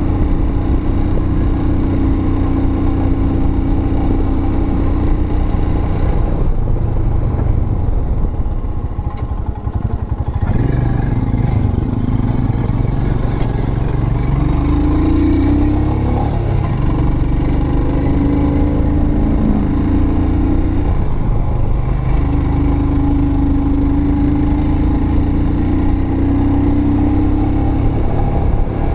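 Motorcycle engine running while riding, its note steady, then easing off about six seconds in and pulling again about four seconds later, the pitch shifting with speed.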